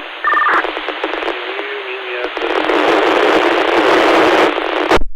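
Fire-department two-way radio transmission swamped by static. A click and a short two-pitch beep mark the key-up, then loud hiss all but buries the voice, grows toward the end and cuts off abruptly.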